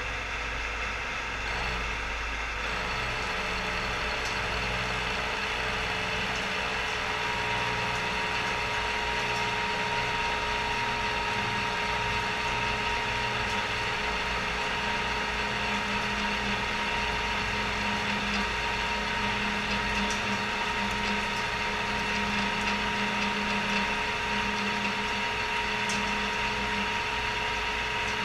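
Cincinnati No. 4 milling machine running an 8-inch face mill under power feed, taking a heavy .200-inch-deep cut at 10 inches a minute across a 6-inch steel bar: a steady machine and cutting noise, with a whine that sets in several seconds in.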